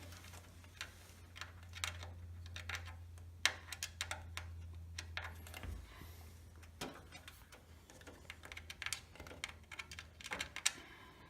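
Irregular small clicks, taps and rattles of computer hardware being handled and fitted into a PC case, with a low steady hum that stops about six seconds in.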